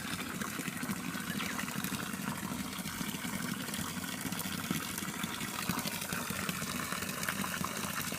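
Water from a homemade waterfall pouring steadily into a pool, splashing.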